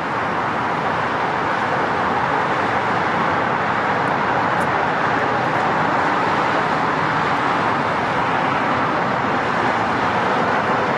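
Siemens S700 light rail train running on an electric line up a grade, a steady rolling hiss with no rise or fall.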